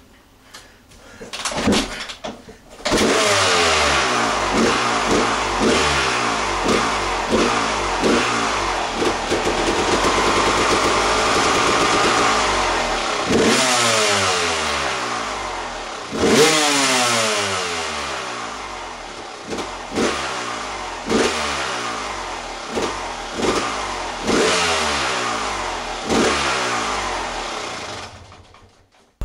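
Honda CR250 two-stroke single-cylinder dirt bike engine starting and catching about three seconds in, then held at a rising high rev for several seconds. After that it is blipped sharply a dozen or so times, each rev climbing and falling back, and it shuts off near the end.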